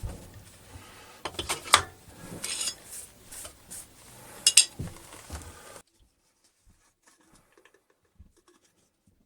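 Small metal objects being handled and clinking together, with two sharper metallic clinks about two and four and a half seconds in. The sound cuts off suddenly about six seconds in, leaving near silence.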